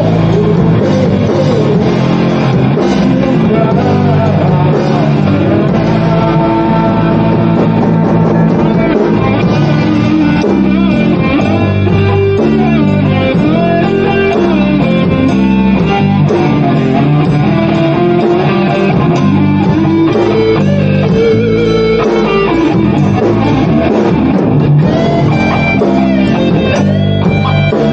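Rock music with electric guitar and drum kit, played loud and continuously.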